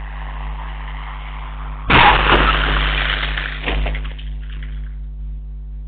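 Vehicle collision at a road junction: a sudden loud crash about two seconds in that rattles away over the next two seconds, with a second, smaller bang shortly after. A steady electrical hum runs underneath.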